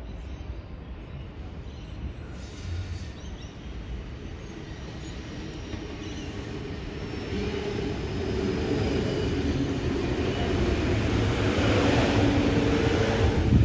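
Double-deck electric suburban train approaching and running past close by. Its rumble and rolling noise grow steadily louder through the second half, with a faint steady whine near the end.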